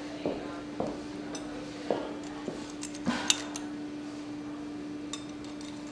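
Light knocks and clinks of a ceramic cup and a metal spoon, about half a dozen in all, the sharpest clink a little past the middle. A steady low hum runs underneath.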